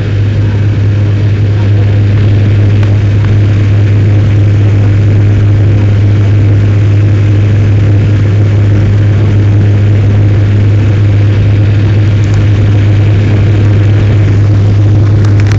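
Jet airliner cabin noise during the climb after takeoff, heard inside the cabin: a loud, steady drone of engines and airflow with a constant low hum.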